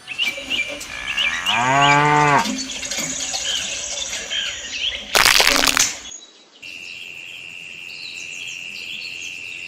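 A cow mooing once, a short call that rises and falls, with small birds chirping around it. A short loud rushing burst follows about five seconds in.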